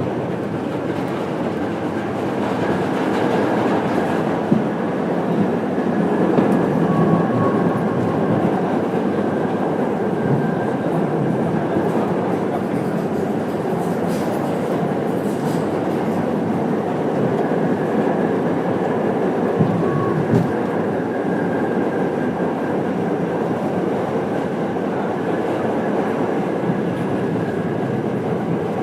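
Subway train running along the track: a steady rumble with wheel clatter, with a faint steady whine above it.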